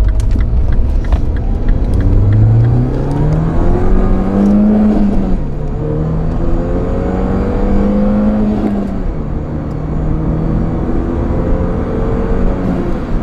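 Mini Cooper S (R56) 1.6-litre turbocharged four-cylinder accelerating hard under load, its engine note rising through the revs and dropping sharply at each of two upshifts, about five and nine seconds in.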